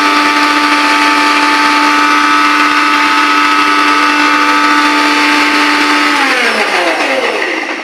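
Eveready electric mixer grinder running at a steady high speed with a loud whine, the jar's lid held down by hand. About six seconds in it is switched off and the motor winds down, its pitch falling as it slows.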